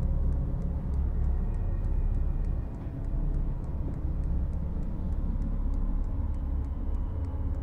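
Low rumbling drone of horror-film sound design, with faint ticks about three or four times a second over it.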